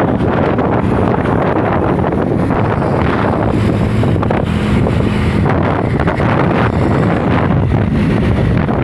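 Loud, steady wind buffeting the microphone over a low engine drone.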